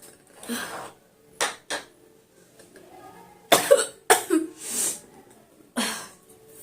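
A woman sneezing over and over, about eight short, sharp sneezes at uneven intervals, some in quick pairs, each with a hissing burst of breath.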